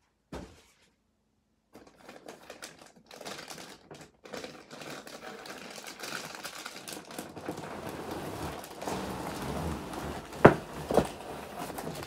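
Cardboard box and plastic packaging rustling, crinkling and clicking as a toy is pulled out of its box, growing louder after about two seconds, with two sharp knocks near the end.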